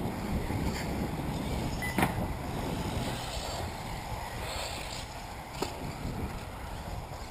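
Wind rumbling on the microphone, with a sharp click about two seconds in and a smaller one later.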